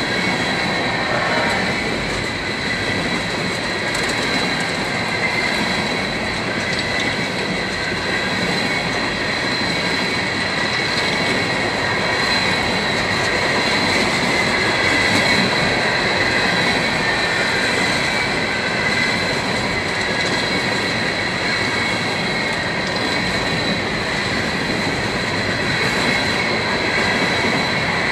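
Herzog ballast cars of a Union Pacific rock train rolling steadily past, wheels rumbling on the rail, with a continuous high wheel squeal over it.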